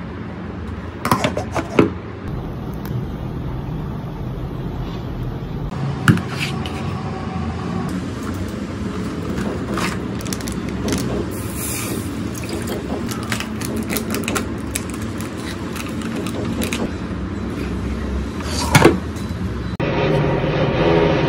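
Cooking sounds at a small electric pot: a few sharp knocks of utensils and lid against the pot, about 1, 2, 6 and 19 seconds in, over a steady background rumble of construction and traffic noise from outside.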